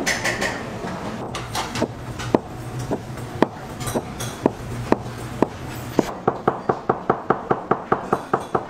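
A large kitchen knife slicing through a block of yellow jelly and knocking on a wooden cutting board at each stroke. The strokes come about two a second, then quicken to several a second from about six seconds in.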